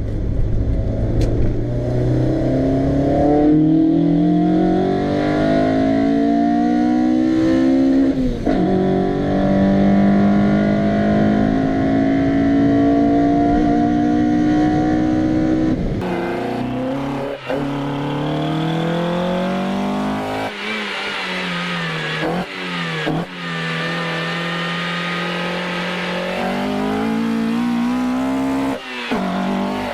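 Toyota 4A-GE 20-valve Blacktop 1.6-litre four-cylinder engine revving hard under acceleration: the pitch climbs steadily, drops at an upshift about eight seconds in and climbs again. After a sudden cut about sixteen seconds in comes a second run with shorter climbs and gear changes.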